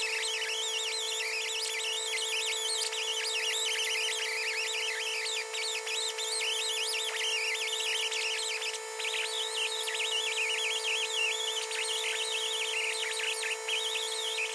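Die grinder with a sanding bit running at a steady high-pitched whine, cleaning rust out of a steel pin bore, with a wavering squeal from the abrasive rubbing on the metal over it. The grinder stops and winds down at the very end.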